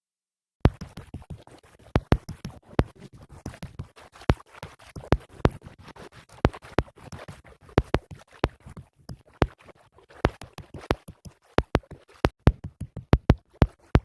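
Irregular sharp clicks and crackles, several a second, starting abruptly after a moment of dead silence, with a low rumble under them for the first few seconds.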